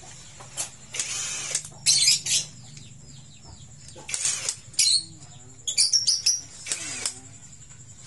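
Cordless impact driver spinning the clutch spring bolts on a Honda CB150R's clutch. It runs in several short bursts of a second or less, each with a fast rattling hammer, with pauses between.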